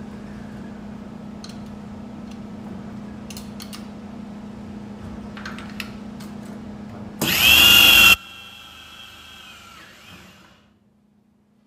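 Hitachi electric drill on a bench drilling machine running with a steady hum. About seven seconds in there is a loud burst lasting about a second, then the motor's whine slowly falls away as it spins down.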